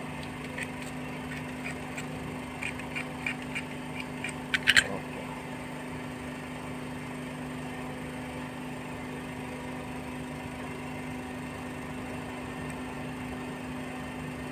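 Light clicks and ticks of small electronic components and their wire leads being handled and bent by hand, with a sharper cluster of clicks about four and a half seconds in, over a steady low hum.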